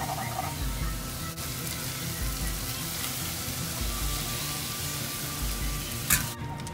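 Instant noodles and chicken wings sizzling in a hot frying pan as they are stirred and water is poured in, a steady hiss with a brief loud burst near the end. Background music with a steady low beat runs underneath.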